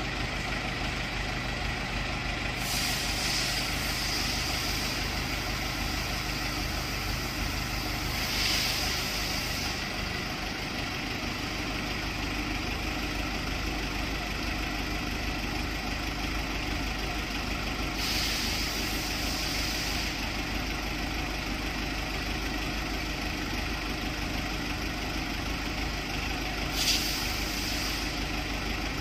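Mobile LED stage truck's engine idling steadily while its hydraulic system lifts the LED screen, with a hiss four times, each lasting a second or two.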